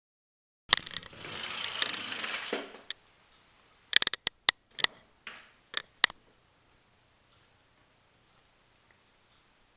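Handling of a packet, most likely cat food being opened: about two seconds of plastic rustling, then a string of sharp clicks and taps, then faint small clicks.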